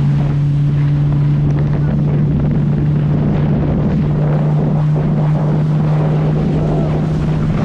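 Outboard motor of an inflatable boat running at a steady pitch, with wind buffeting the microphone.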